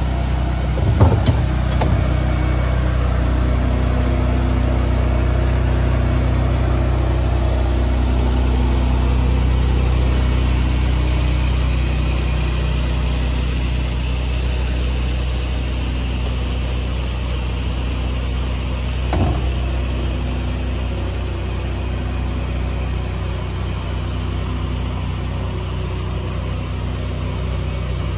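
Bin-washing truck's engine running steadily at idle, a low even hum. A couple of short knocks come through it, about a second in and again about two-thirds of the way through.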